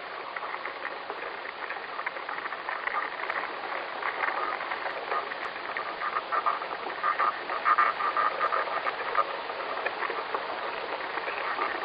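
Amplified recording presented as the sound of ants: a crackling hiss with repeated buzzy chirps, loudest a little past the middle.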